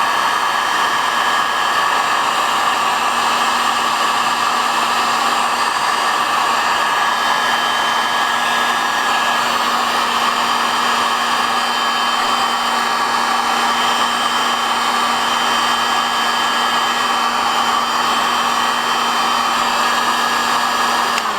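Electric heat gun blowing steadily while shrinking heat-shrink tubing over a soldered wire splice. It is switched off near the end, its fan winding down with a falling tone.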